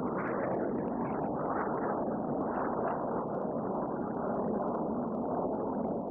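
Jet noise from Red Arrows BAE Hawk aircraft, a steady rushing sound that holds level throughout.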